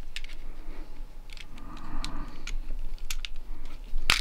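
Small screwdriver prying and scraping at the plastic housing of a GFCI receptacle: scattered light clicks and taps, with one sharp, louder snap-like click near the end.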